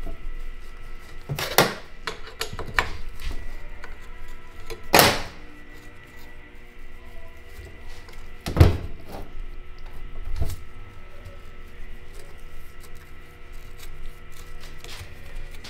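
Several sharp metal clunks and clicks as the steel hard lines and fittings of a BMW E36/E46 power steering rack are worked loose and handled on a metal workbench, the loudest a little past halfway.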